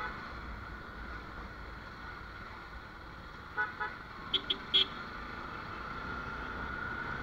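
Steady running noise of a motorcycle riding through traffic. About halfway through, a vehicle horn gives two short beeps, followed a moment later by three quick, higher-pitched beeps.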